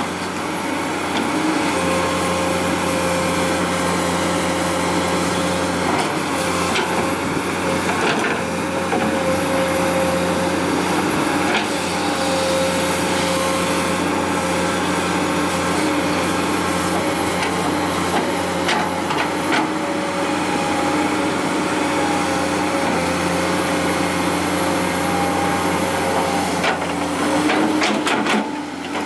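Komatsu PC200 hydraulic excavator's diesel engine running steadily under working load, with occasional knocks and scrapes as the bucket digs through dumped rubbish and rock.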